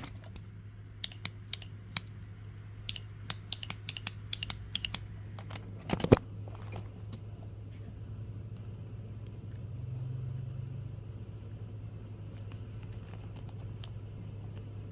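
Small metal parts of a cordless grinder being handled during reassembly: a run of sharp clicks and clinks over the first five seconds and a louder knock about six seconds in, over a steady low hum.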